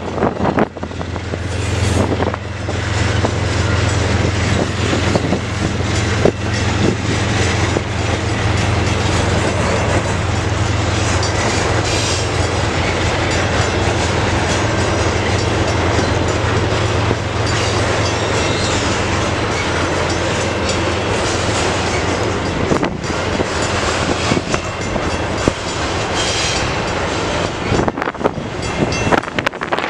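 Double-stack intermodal freight cars of a CN train rolling past at close range, their steel wheels on the rails making a steady rumble. A low drone underneath drops away about two-thirds of the way through.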